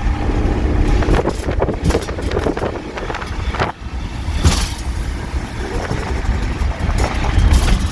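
Turbocharged Holden VL under hard acceleration on boost, the engine running loud with the external wastegate opening and venting through its open screamer pipe. The engine note drops off briefly about three and a half seconds in, then comes back with a sharp hiss.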